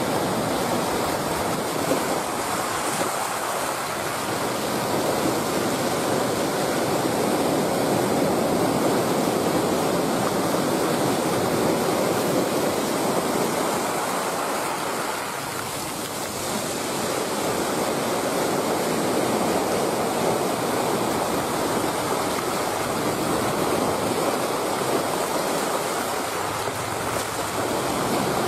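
Steady rushing of sea waves, slowly swelling and easing.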